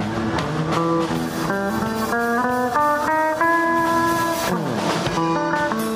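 Stratocaster-style electric guitar playing a melodic line of single notes over held lower notes, climbing in steps, with a quick falling slide about four and a half seconds in before the notes pick up again.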